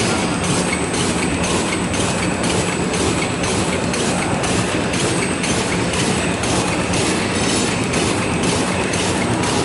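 Two-line side-sealing bag-making machine running, with a steady rhythmic clatter of about four strokes a second over a constant hum and a faint high whine.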